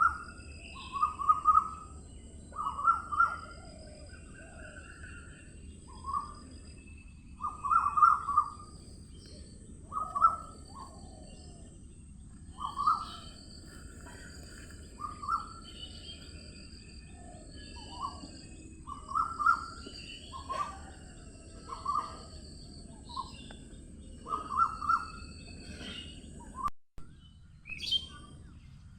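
Morning birdsong: many short chirps and calls from several birds, a clear call every second or two over fainter, higher notes, with a steady low background hiss. The sound drops out for an instant near the end.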